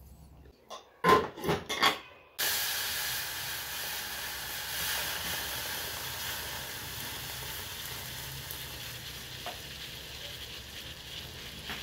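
A few short knocks of kitchenware, then hot water poured from a kettle into a saucepan on a gas stove: a steady rush that starts suddenly a couple of seconds in and slowly fades.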